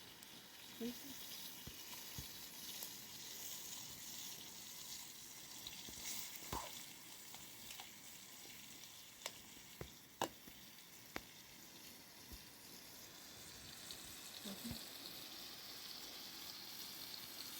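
Food frying: a steady sizzle with scattered sharp pops.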